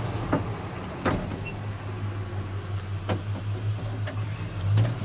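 Manual window crank on a 1985 Ford F-150 door being turned, the glass sliding in a newly fitted run channel and weatherstrip seal, with a few separate clicks and knocks from the regulator and glass. A steady low hum runs underneath.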